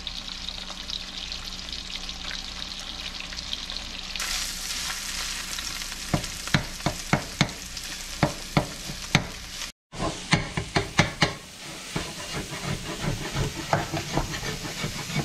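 Speckled trout fillets sizzling in hot oil in a metal skillet. From about six seconds in, a metal spatula taps and scrapes against the pan over and over as the frying fish is chopped into small pieces.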